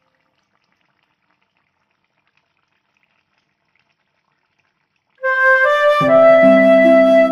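Silence for about five seconds, then background music starts: a single melody line, joined about a second later by fuller chords and a bass part.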